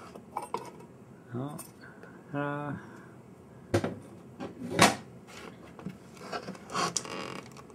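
Light metal clatter and knocks as the aluminium lid of the amplifier's case is lifted off and set aside, with one sharp clank just under five seconds in.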